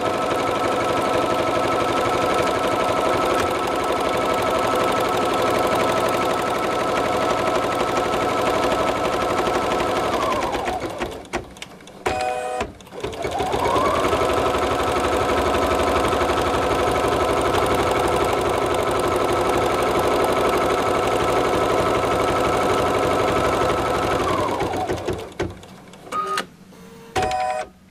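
Embroidery machine with a cutwork blade in its needle bar, running at speed as the blade stabs up and down through synthetic cork. It winds down and stops about 11 seconds in, gives a brief tone, winds back up and runs again, then winds down and stops near the end with another brief tone.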